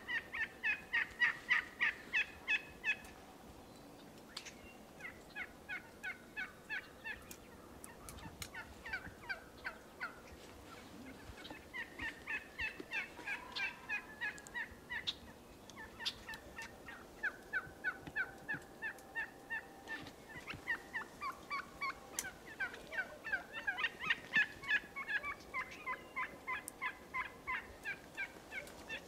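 Merriam's wild turkeys gobbling: runs of fast rattling notes a few seconds long, following one another almost without pause, loudest at the start and again about three quarters of the way through.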